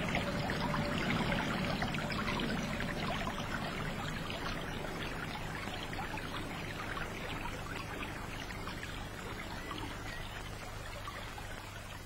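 Thin stream of water pouring from the broken jug of the bronze Girl with a Pitcher fountain and splashing onto its stone, a steady trickle that slowly fades.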